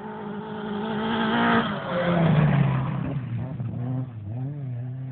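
Rally car passing at speed on a gravel stage. The engine note climbs as the car approaches, then drops in pitch as it goes by about two seconds in, with a hiss of sprayed gravel. The note then rises and falls as the car revs away.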